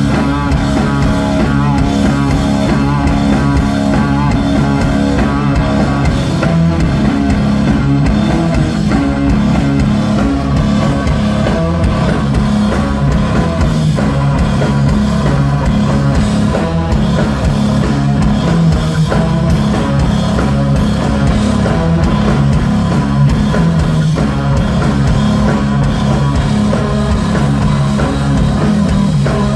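Live instrumental stoner rock played loud by a trio: electric guitar, electric bass and drum kit working through a steady riff.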